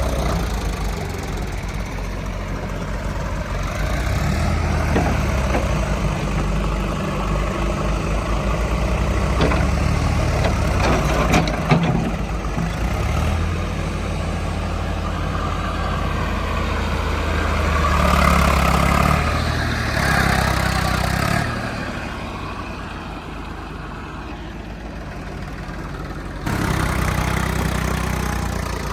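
Heavy diesel machinery engine running, revving up for a few seconds past the middle, with a few sharp knocks earlier on. The sound jumps abruptly louder near the end.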